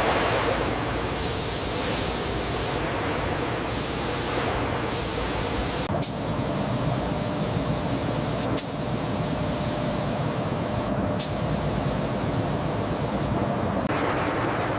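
Sawmill machinery running: a steady, dense hiss over a low rumble, its high end cutting in and out abruptly every second or two, with two sharp clicks.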